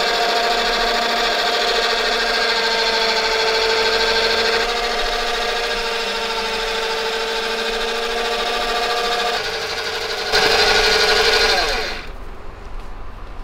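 Electric stand mixer motor running steadily with a wire whisk beating foam latex in a steel bowl, the whipping stage of making foam rubber. Its tone shifts about five seconds in, it runs louder from about ten seconds in, and it is switched off about twelve seconds in.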